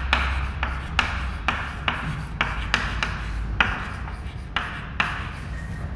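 Chalk writing on a chalkboard: a steady run of short scratchy strokes and taps, about two or three a second, as letters are written out.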